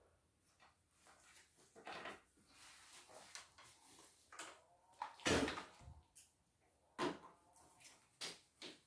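Scattered light knocks and clatter of tools and parts being handled at a workbench. The loudest knock comes a little past halfway.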